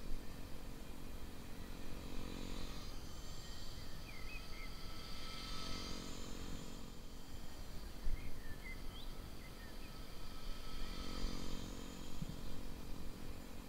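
Blade 130X RC helicopter's electric motors and spinning rotors giving a steady whine that swells and fades a little, over a rumble of wind. A few short bird chirps come through twice, about four and nine seconds in.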